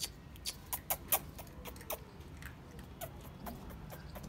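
Siberian husky puppies' claws clicking and pattering on a concrete floor: light, irregular taps, more of them in the first two seconds.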